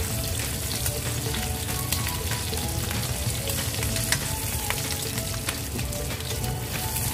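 Marinated beef short ribs (kalbi) sizzling in a frying pan as they sear: a steady crackling hiss of spitting meat juices and oil, with a sharper tick about four seconds in.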